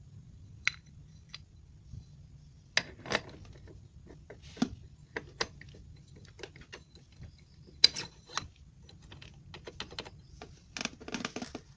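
Irregular light clicks and taps of metal parts being handled as an automatic scooter's CVT variator pulley is fitted back onto the crankshaft by hand, with a quick run of clicks near the end.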